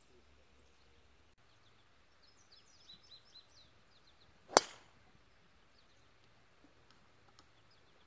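A golf tee shot: a single sharp crack of the club face striking the ball, about halfway through.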